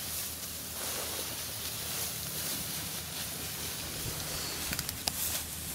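Rustling of armfuls of cut sedge and grass being handled and laid, with a few light clicks near the end.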